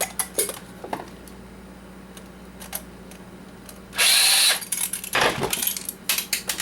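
A handheld power drill runs in a short, loud burst of about half a second roughly four seconds in. Scattered clicks, and a run of sharp knocks and clatter near the end, come from parts of the coffee maker being handled.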